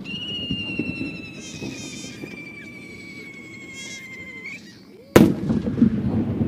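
A No. 5 aerial firework shell whistling as it climbs: one steady whistle that sinks slightly in pitch for about four and a half seconds. About five seconds in, the shell bursts with a loud crack and a rumbling echo.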